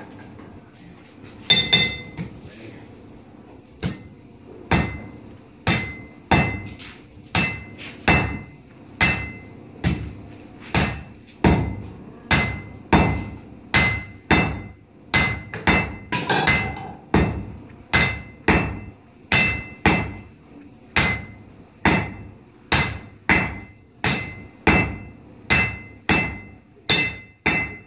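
Blacksmith's hammer forging hot iron on an anvil: a blow or two about 1.5 seconds in, then steady rhythmic strikes, about three every two seconds. Each blow rings with a clear, high metallic tone.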